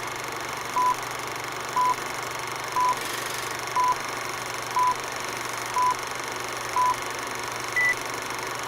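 Electronic beeps: a short tone about once a second, seven times, then a single higher-pitched beep near the end, over a steady hiss and low hum, in the manner of a countdown intro.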